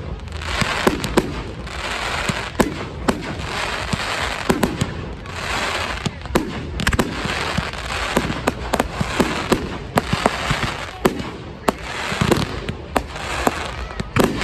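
Fireworks display going off: many sharp bangs and cracks in quick succession, over repeated bursts of crackling hiss.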